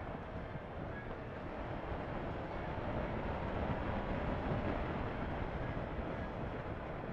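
Onboard riding noise of a Honda CB500F parallel-twin motorcycle cruising at town speed: the engine running steadily under a rush of wind buffeting the microphone, getting a little louder about midway.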